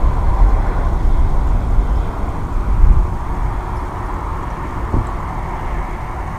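Wind buffeting the camera's microphone: a loud, uneven low rumble with a hiss above it, easing off a little after about two seconds.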